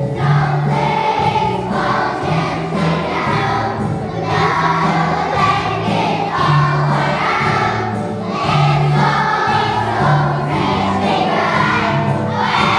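Children's choir singing together with musical accompaniment, over low bass notes that repeat roughly once a second.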